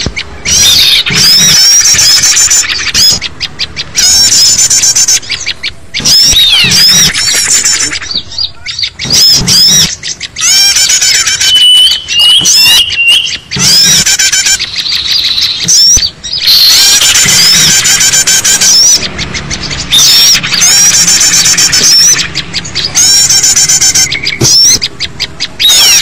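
Loud, dense chorus of many small songbirds chirping and trilling in agitation, a bird-lure recording made to draw in wild small birds. The fast, repeated high notes come in bursts separated by short breaks, with one brief steady whistled note partway through.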